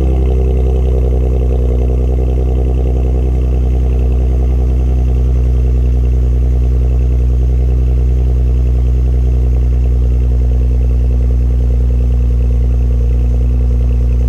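Pickup truck's engine idling steadily, heard at the exhaust tailpipe; the revs drop and settle to idle right at the start.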